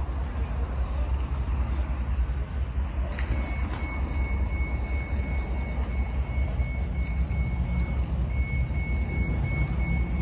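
Steady low rumble of idling heavy vehicles, with a high-pitched reversing alarm beeping quickly and evenly from about three seconds in.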